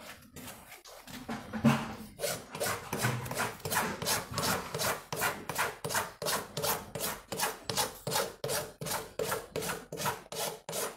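Farrier's hoof rasp filing a horse's hoof: rhythmic rasping strokes, about three a second, settling into a steady rhythm about two seconds in.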